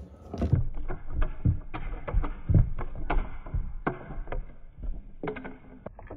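A heavy steel ball rolling with a low rumble along wooden rails and clacking over a row of thin slats laid across the track, a sharp knock every quarter to half second.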